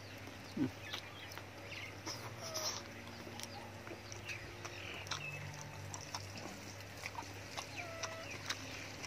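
Wet chewing and lip-smacking on boiled beef skin and tendon, heard as scattered short clicks, with a few short bird calls in the background.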